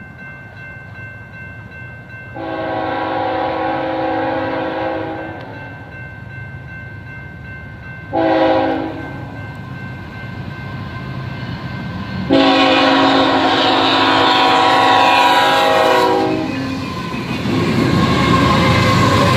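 BNSF diesel freight locomotive sounding its multi-chime air horn in three blasts, long, short, long, the end of the grade-crossing warning pattern. Near the end the lead locomotives pass close by, engines running and wheels rumbling on the rails.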